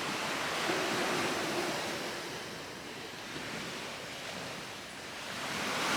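Ocean surf washing onto the beach, a steady rush that swells near the start, eases off in the middle and builds again near the end as another wave comes in.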